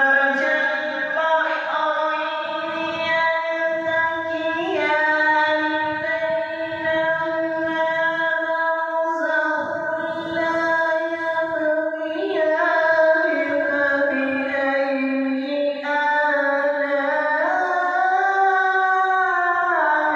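A reciter's voice chanting the Quran in tajwid style, in long melodic phrases of held notes that step up and down in pitch every few seconds.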